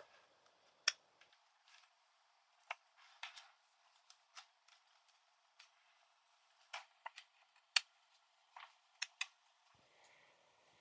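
Faint, irregular light clicks and taps from handling a freshly reassembled Toshiba NB505 netbook while setting it up to power on, roughly a dozen and a half sharp ticks with short gaps between them.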